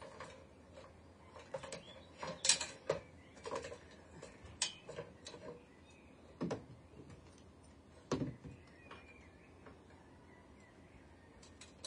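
Scattered knocks and clicks of hands, tools and timber being handled at a wooden wall frame and stepladder, with a few louder knocks about a third of the way in and again around the middle; faint bird chirps behind.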